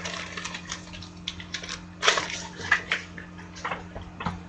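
Crinkling and rustling of trading cards and plastic card sleeves handled by hand: irregular sharp crackles, loudest about two seconds in, over a faint steady hum.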